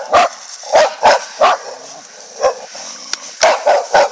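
Livestock guardian dog barking repeatedly in short, sharp barks, roughly nine in all, with a pause of about a second just after the middle: alert guard barking.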